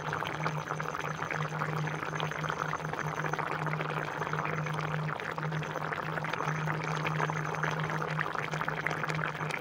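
Mutton curry boiling in a pot, a dense crackle of bubbling and popping, with a steady low hum under it.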